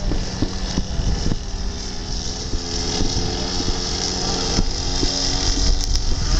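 RC Katana model airplane's motor and propeller droning in flight, with wind buffeting the microphone. The wing covering has come loose and is flapping, which a listener hears as something coming loose on the plane.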